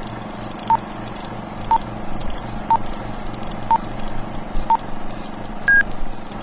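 Film-leader countdown sound effect: a short beep every second, five in all, then a higher, longer beep near the end, over a steady hum with crackle and hiss.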